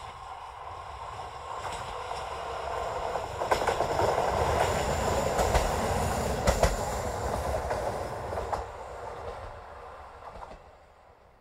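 A KiHa 40 diesel railcar approaches, passes close by and fades away. Its engine rumbles and its wheels give a few sharp clicks as it goes past, loudest in the middle.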